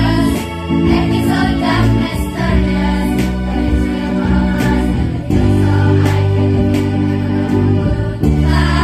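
Girls' choir singing over an instrumental accompaniment of steady, held low notes that change every second or so.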